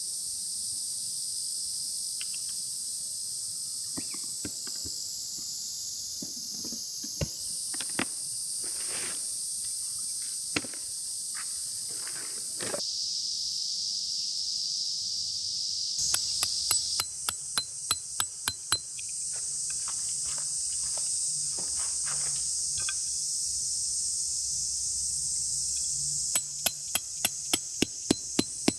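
Summer insects shrilling steadily at a high pitch, with scattered light knocks and rustles. About halfway through, and again near the end, come quick runs of hammer strikes, about four a second.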